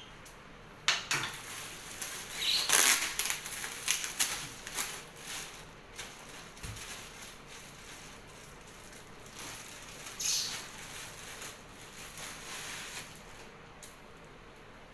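Rustling and crinkling in irregular bursts, with clicks, as a collapsible umbrella fish trap is unwrapped and handled. The handling is busiest in the first few seconds and picks up again near the middle.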